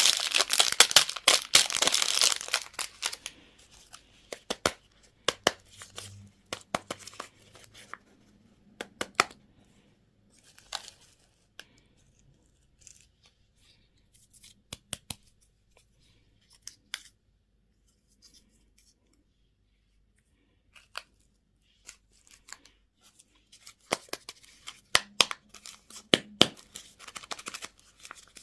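Plastic candy packaging being torn open with a dense crackle for the first few seconds, followed by scattered sharp clicks and taps of handling, with a short burst of taps near the end.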